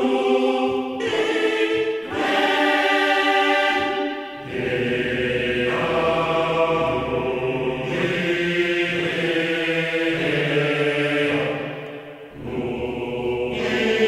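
Sampled men's choir from the EastWest Hollywood Choirs virtual instrument, tenor voices singing held chords played from a keyboard. A couple of short chords give way to longer sustained ones, changing every few seconds.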